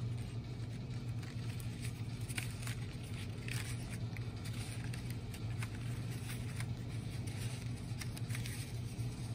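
Paper rustling and scraping as a paper strip is pushed over and under the slits of a paper sheet, in soft irregular strokes over a steady low hum.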